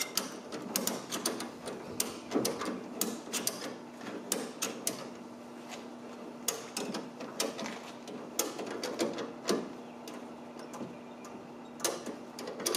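Ratchet strap being cranked tight by hand: runs of quick metallic clicks from the ratchet handle in several bursts with short pauses, tensioning the strap across the truck bed.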